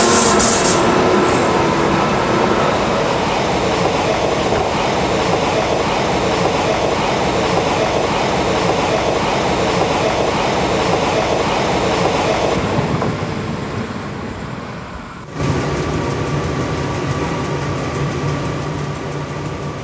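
An electric-locomotive-hauled train running on the rails, a loud steady rush of wheel and running noise that eases a little after about 13 seconds. About 15 seconds in, it cuts suddenly to another steady train run carrying a low hum and a thin higher tone.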